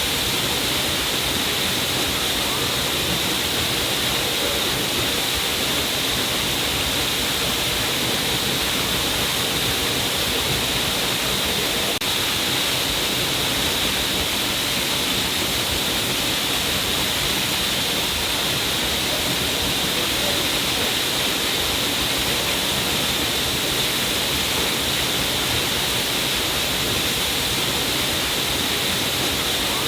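A stream of water falling down a cliff face, a steady, even rush and splash of water with a hissy upper edge, unchanging throughout.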